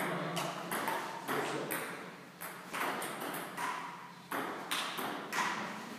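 Table tennis ball struck back and forth in a rally: a quick, uneven series of sharp clicks off bats and table, a stroke about every half second, some with a short ringing ping.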